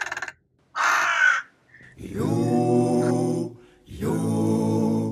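A low voice singing a cappella, holding two long notes of about a second and a half each, with a short raspy vocal cry about a second in.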